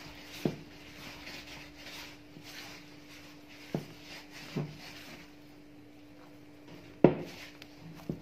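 Hands kneading soft brioche dough in a plastic bowl: soft rubbing and squishing, with a few dull knocks as the dough is pushed and the bowl shifts, the loudest about seven seconds in.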